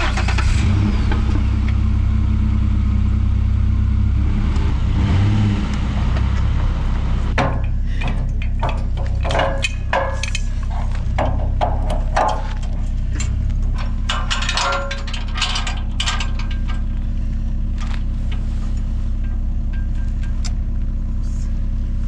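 Pickup truck engine running, louder for the first five seconds or so, then idling steadily. From about seven seconds in, a run of metal clanks and rattles as the sawmill trailer's coupler and safety chains are hooked to the truck's hitch.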